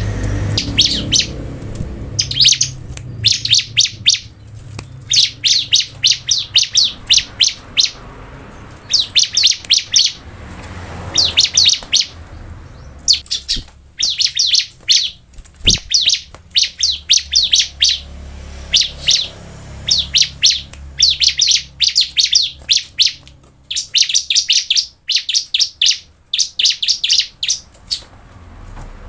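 Bar-winged prinia (ciblek) singing: repeated bursts of rapid, high-pitched notes, each about a second long, with short pauses between them.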